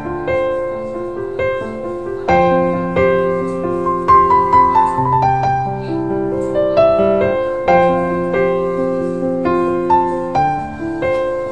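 Background piano music: notes and chords struck one after another, each ringing out and fading.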